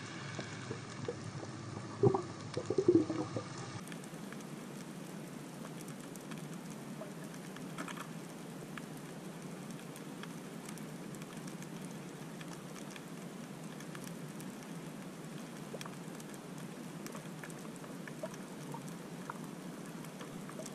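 Underwater ambience picked up by a submerged camera: a steady hiss with scattered faint clicks, and a few bubbly pops in the first few seconds.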